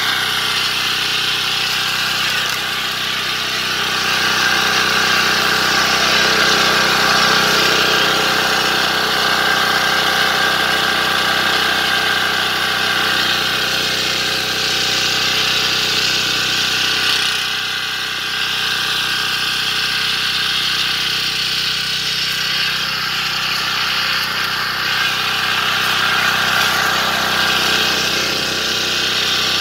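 Walk-behind power tiller's small engine running steadily under load as its rotary tines churn through soil.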